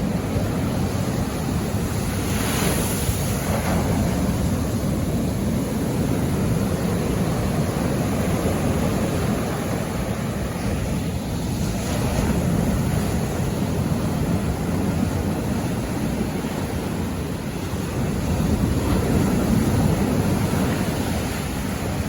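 Sea waves washing on the shore over steady wind rumble on the microphone. A wave breaks with a brighter hiss about two to three seconds in.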